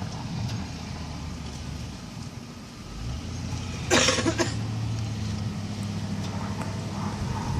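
Plow vehicle engine running steadily, sagging briefly and picking up again about three seconds in. About four seconds in comes one short, loud rattle of several quick knocks.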